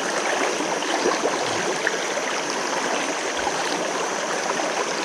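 Spring creek water running steadily, an even rushing noise.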